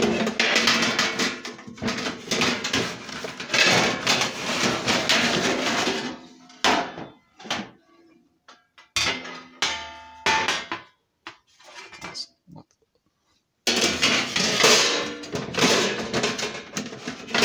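Metal pans clattering and scraping as they are moved about and handled. The sound comes in two dense spells of rapid knocks, one at the start and one near the end, with a few scattered single clunks between them.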